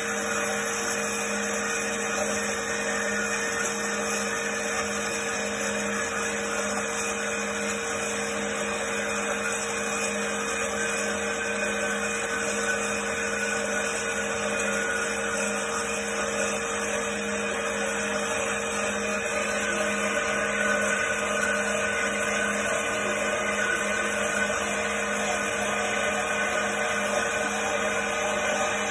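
Trennjaeger Teba 310 metal-cutting band saw running steadily, its blade sawing through a thick-walled steel tube, with a constant motor hum and a higher whine. It grows slightly louder about two-thirds of the way through.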